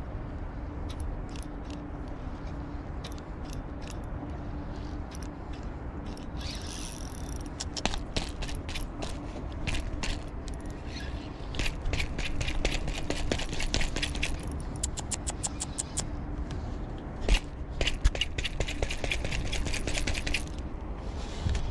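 A fishing reel being cranked to retrieve an ultralight jig, its mechanism giving quick rapid clicks. The clicks are scattered at first and come in dense runs through the second half.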